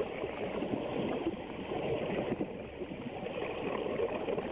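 Muffled, steady rushing of water heard through a camera held underwater.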